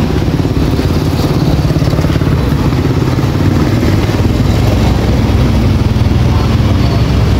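A small engine running loudly and steadily at an even speed.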